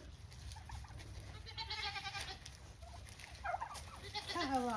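Goats bleating: a drawn-out call about two seconds in, then shorter wavering bleats near the end, the last one falling in pitch.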